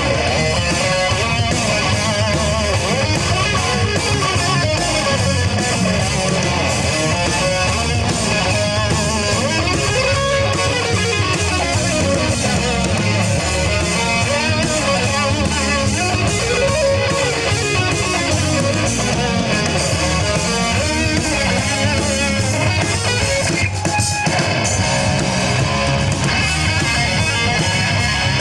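Live rock band playing an instrumental passage: electric guitars, bass and drum kit, loud and continuous.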